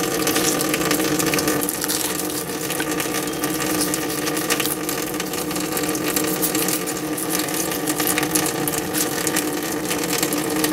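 A machine running steadily with a constant, even hum, with light clicks over it.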